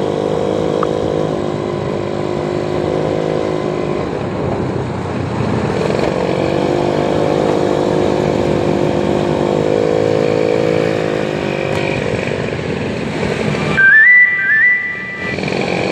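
A motor vehicle running steadily, its engine note swelling and easing. About 14 s in, a short electronic tone pattern sounds: a few notes stepping up in pitch.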